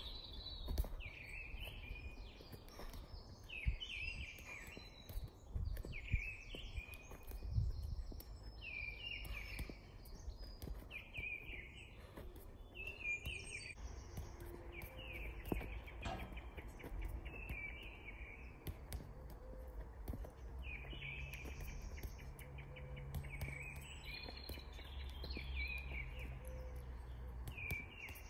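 Garden birds chirping and singing in short repeated phrases, with occasional soft thuds of a football being touched with the feet.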